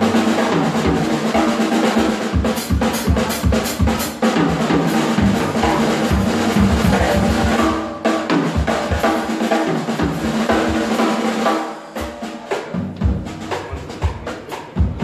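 Live band playing: drum kit with busy snare and bass-drum fills over electric bass, guitar and violin. About twelve seconds in the music thins out and gets quieter, leaving sparser, sharper drum hits.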